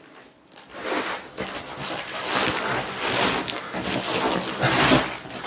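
Plastic wrapping on a rolled memory foam mattress topper rustling and crinkling in several surges as the topper is spread out on the bed.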